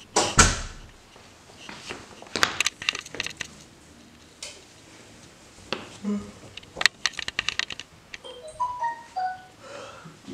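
Scattered clicks, knocks and rustling of handling noise, with a short run of brief tones stepping in pitch about eight seconds in.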